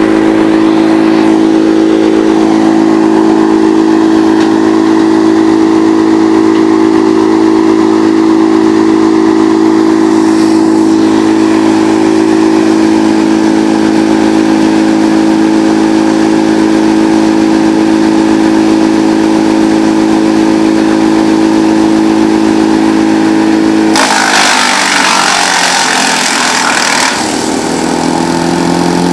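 Bearcat CH8993H wood chipper, driven by a 35 hp Briggs & Stratton Vanguard V-twin, running steadily at speed. About 24 seconds in, a branch is taken into the cutters and chipped with a loud noisy rush while the engine pulls down under the load, and the engine's pitch climbs back up near the end.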